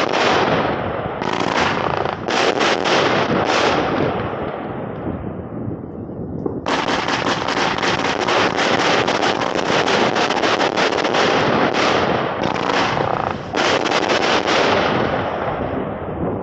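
Funke Candy Mountain firework compound cake firing: dense, rapid crackling and popping of crackling stars. The first run fades out about five seconds in. A second run starts suddenly about seven seconds in, dips briefly and picks up again, then tails off near the end.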